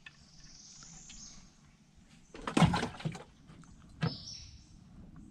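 Hard knocks and a short rattle in a kayak as a just-caught shellcracker is stowed. The knocks are loudest about two and a half seconds in, followed by a single sharp click just after four seconds.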